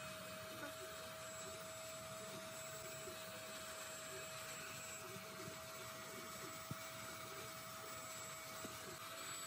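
Electric heat gun running steadily: its fan blows with a continuous whirring hiss and a constant hum, playing hot air over a thin bent wooden slat to soften it for shaping.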